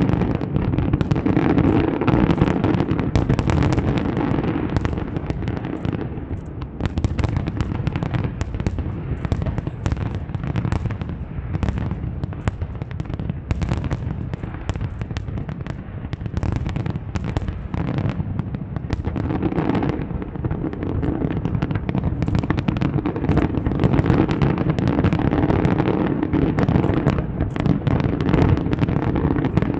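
Fireworks display: a dense, continuous barrage of bangs and crackles, many reports a second with no break.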